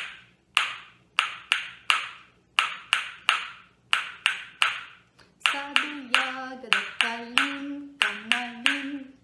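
Pair of painted wooden spoons (Russian folk lozhki) clacked together in a lively beat, about two to three sharp clacks a second. About halfway through, a woman's voice joins in with a wordless tune over the clacking.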